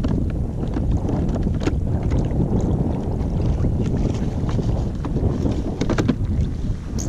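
Wind buffeting the microphone on open water: a steady low rumble, with a few light clicks and knocks.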